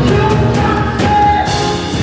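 Gospel worship music with singing over a band and drum kit.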